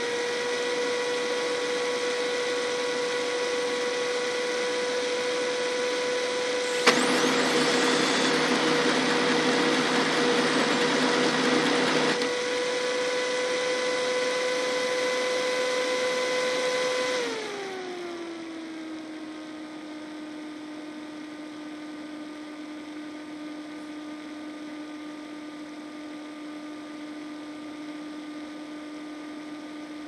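Photocopier-scanner running with a steady motor whine. A click starts a louder, rushing pass lasting about five seconds; a little past halfway the whine falls in pitch and the machine runs on quieter and steady.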